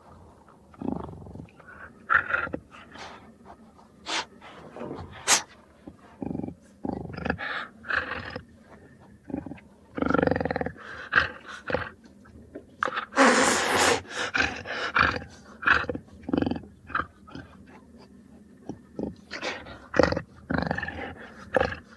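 Jaguar calling in a long irregular series of short growls and grunts, with a longer, louder snarl about 13 seconds in.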